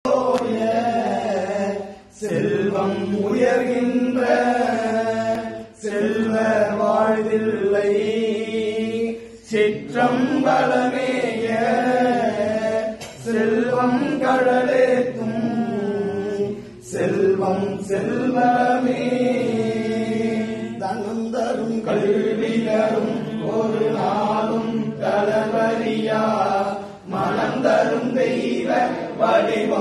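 Melodic chanting by voice in long held phrases, broken by short pauses every few seconds.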